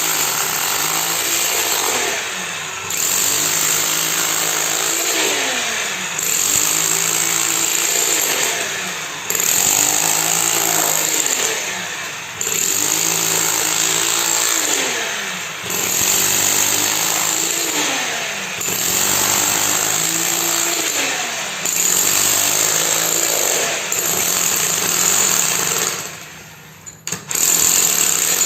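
Concrete-pouring machine running loudly, its note sweeping and then settling in a cycle that repeats about every three seconds. The sound drops away briefly near the end, then returns.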